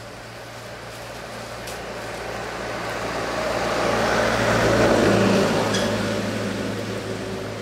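A motor vehicle passing by, its engine and road noise swelling to a peak about five seconds in and then fading away.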